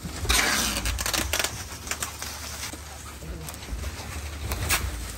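Packaging being handled: a short burst of rustling about a third of a second in, then scattered light knocks and clicks over a low rumble.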